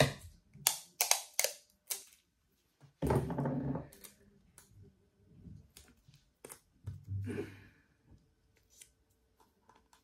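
Tabletop handling sounds: a string of sharp clicks and taps while a roll of tape is pulled and torn, with longer rasping noises about three seconds in and again near seven seconds.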